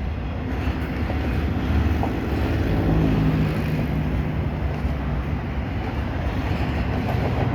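Double-stack container well cars of a freight train rolling past, a steady rumble and rush of steel wheels on rail.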